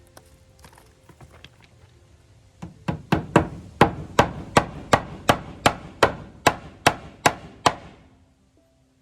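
Hammer driving a nail into rough sawn oak siding: about fifteen sharp, evenly paced blows, roughly three a second, after a few light taps.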